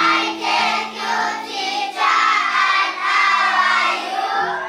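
A class of young schoolchildren singing together in unison.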